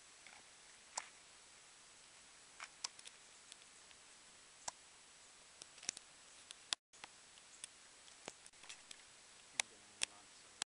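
Faint steady hiss with a thin high tone, broken by scattered sharp clicks and ticks at irregular intervals; the sound cuts out for a moment about two-thirds of the way through.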